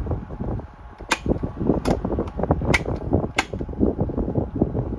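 Vintage Frigid 12-inch oscillating table fan, a rebadged Panasonic, running on its middle speed with an uneven rush of moving air. About four sharp clicks are heard, typical of the fan's dry, unoiled bearings, which it makes squeaky, dirty-bearing noises from.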